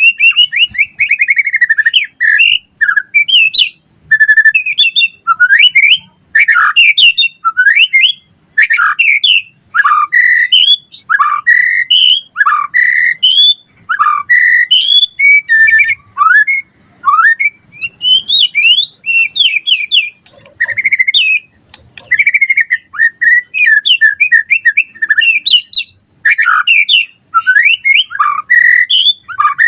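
White-rumped shama singing loudly in full, fast song: a rapid string of varied whistled and chirping phrases, sliding up and down in pitch, with only short pauses between them.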